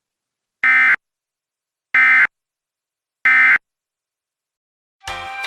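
Emergency Alert System end-of-message code: three short, harsh bursts of SAME digital data, each about a third of a second long and about 1.3 s apart, marking the end of the alert. Music begins near the end.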